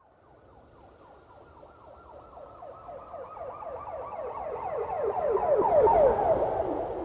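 Police car siren sounding in fast, repeating downward sweeps, several a second. It grows steadily louder from faint to a peak about six seconds in, then begins to fade.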